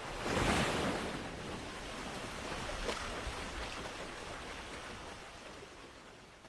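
Ocean surf: a wave washes in, loudest about half a second in, and its hiss slowly fades away.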